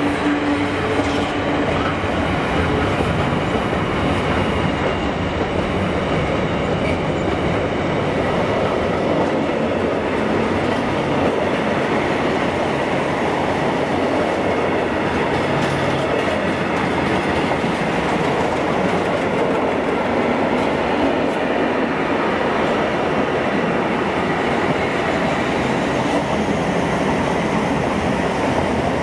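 Container freight train's wagons rolling past close by: a steady, loud noise of steel wheels running on the rails.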